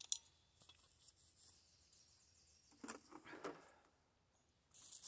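Near silence: a sharp click at the very start, then a long breath out about three seconds in.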